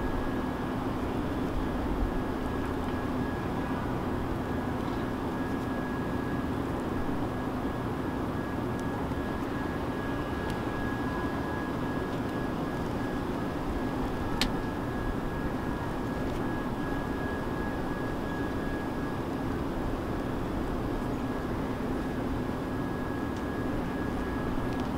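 Steady mechanical drone with a constant low hum and a faint high whine, like a running engine or motor, with one sharp tick a little past halfway.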